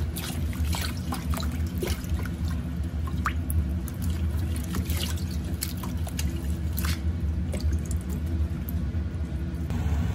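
Water dripping and trickling in scattered, irregular small drops from freshly washed greens being soaked in salted water, over a steady low hum.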